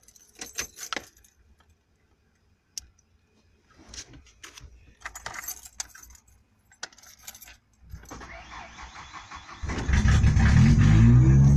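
Light clicks and key jangling, then about eight seconds in a steady whirring, and at about ten seconds the 1991 Ford Ranger's engine catches and runs loudly, its pitch rising and falling as it is revved. It starts now that the fuel pump is getting power through the kill-switch wiring.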